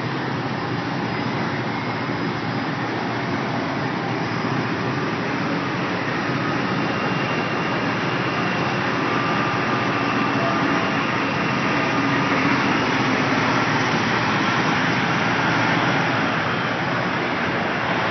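Freightliner FLD120 semi tractor's diesel engine running as the car-carrier rig is maneuvered slowly, a steady noisy rumble that grows a little louder in the second half as the truck comes closer.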